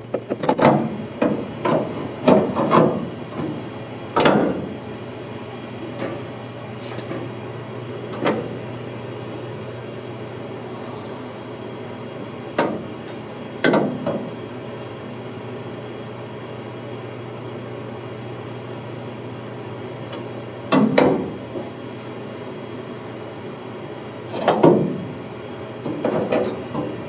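Irregular hammer blows and knocks on the car's body panels during rust repair: a quick run of strikes at first, then single blows several seconds apart, over a steady low hum.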